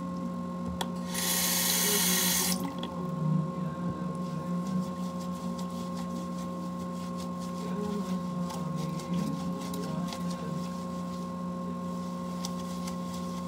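Bathroom sink tap running briefly, starting about a second in, then small wet squelching and crackling as a makeup sponge is squeezed in soapy, lathered hands. A steady hum runs underneath.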